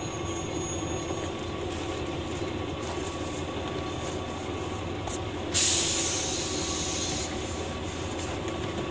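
Steady rumble of a JR West KiHa 120 diesel railcar heard from inside the car; about five and a half seconds in, a loud burst of compressed air hisses for under two seconds and dies away.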